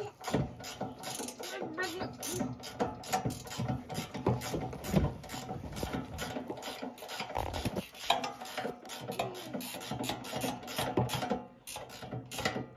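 Ratchet wrench clicking in repeated quick runs, with a few louder knocks.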